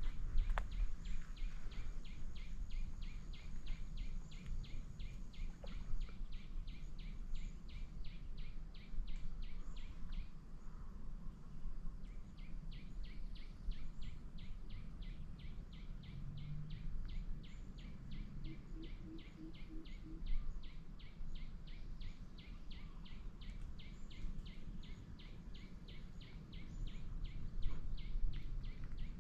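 A repeated high chirping call from a small animal in the surroundings, about three short chirps a second, keeping up its rhythm except for a pause of about two seconds around ten seconds in, over a steady low rumble of outdoor noise.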